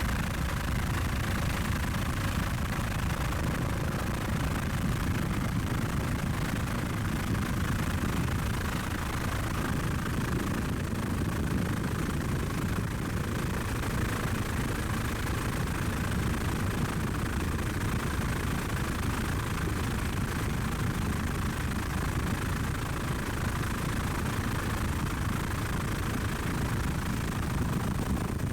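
Steady drone of a helicopter in flight, its engine and rotors running evenly, with no change in level.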